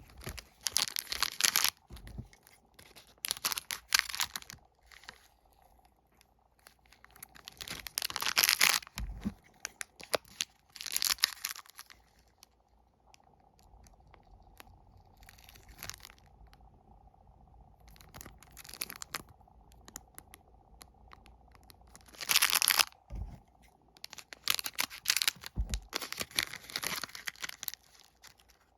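Plastic wafer-snack wrappers being crinkled and torn open, in repeated bursts of crackling with short pauses between them.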